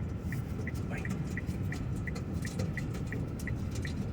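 Car cabin noise: a steady low road and engine rumble, with the car's dashboard ticking in short, high, evenly spaced ticks about three times a second.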